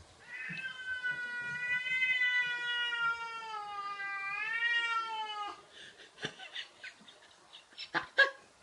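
Domestic cat giving one long, drawn-out meow of about five seconds, its pitch sagging and then rising again near its end. A few sharp clicks and taps follow, the loudest near the end.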